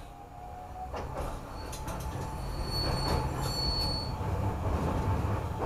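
Iyotetsu 5000 series low-floor tram running, heard from its cab: a low rumble that grows louder, with a high, steady wheel squeal from about a second and a half in to about four seconds in as it takes a curve. A few sharp clicks sound over the rumble.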